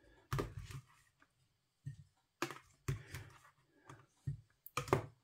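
Metal fork clicking and scraping against a ready-meal tray and a plate as chips are lifted out and set down, about half a dozen separate short clicks and scrapes.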